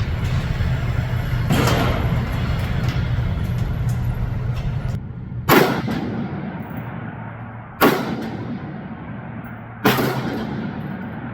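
Three AR-15 rifle shots about two seconds apart, each sharp crack followed by a ringing, echoing tail. The shots come after a low steady rumble in the first half.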